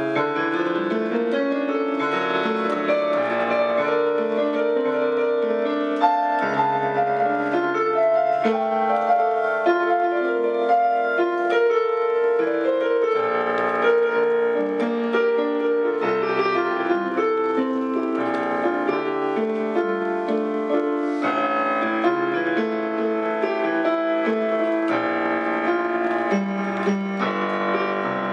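Solo piano music played with both hands on a digital piano, a continuous flow of changing notes at an even loudness.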